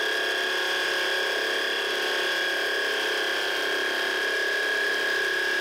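Electric motor and gearbox driving a 3D-printed centrifugal water pump, running with a steady high whine.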